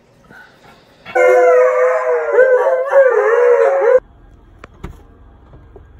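Howling: a loud, long, wavering pitched cry with several overlapping voices, starting about a second in and cut off abruptly about three seconds later.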